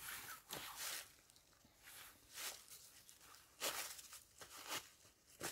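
A person moving on the forest floor and bending to the ground: several short, faint rustles and scuffs of steps and clothing, spaced irregularly.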